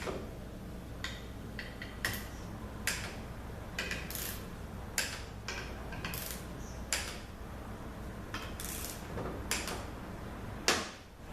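Torque wrench tightening ZF6HP26 valve-body bolts to about 80 inch-pounds: a series of sharp metallic clicks and ratchet ticks at irregular intervals, with one louder click near the end.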